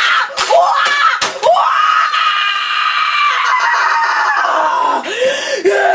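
A boy screaming in a rage: short shrieks and a couple of sharp knocks, then one long high-pitched scream of about three seconds that falls off, followed by choppy yelling.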